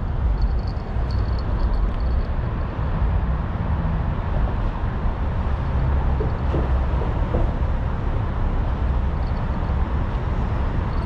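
Steady low rumble of road traffic, with a few faint light ticks in the first couple of seconds.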